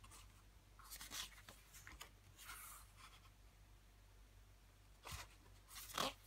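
Pages of a CD album's photobook booklet being turned by hand: several short, soft paper rustles and slides, the loudest a page flip about six seconds in.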